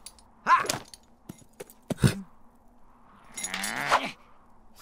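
A short cartoon vocal cry, a sharp knock about two seconds in, then a sword swished and drawn with a rising metallic ring near the end.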